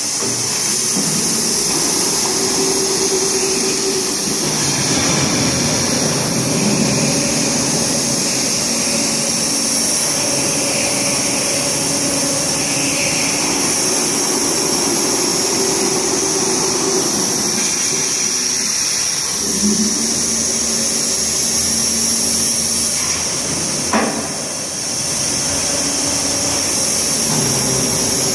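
Horizontal gantry CNC V-grooving machine running its tool carriage along a steel plate: a steady machine hum with a strong high hiss and motor tones that change pitch as the carriage moves. A sharp click about 24 seconds in, followed by a brief lull.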